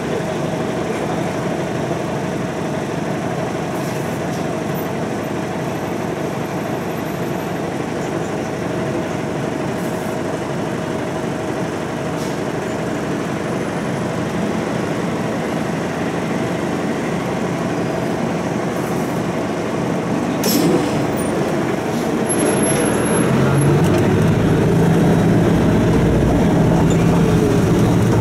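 Inside a city bus: the engine idles with a steady hum while the bus waits, then about 20 seconds in a short sharp noise is followed by the engine growing louder and deeper as the bus pulls away.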